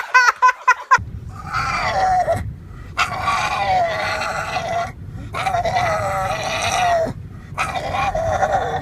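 An animal calling in four long, drawn-out cries, each lasting one to two seconds, with short pauses between them.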